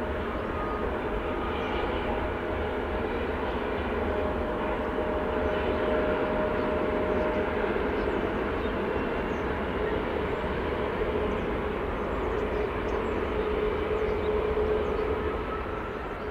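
Twin rear-mounted turbofans of a Mitsubishi CRJ-900 regional jet running: a steady rushing noise with a faint whine that drifts slowly lower in pitch.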